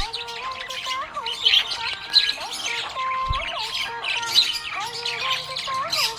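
Budgerigars chirping and chattering rapidly and continuously, over a simple melody of held notes.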